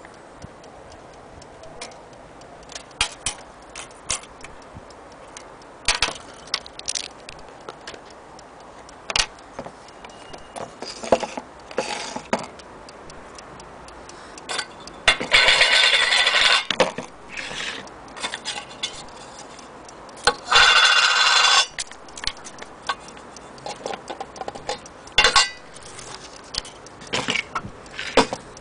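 Small antique French mantel clock with a platform escapement ticking, with scattered sharp knocks. Two louder stretches of noise, each a second or two long, come about halfway through.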